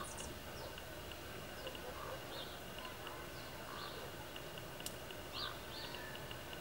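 Short bird chirps scattered over a faint outdoor background, with one sharp click about five seconds in.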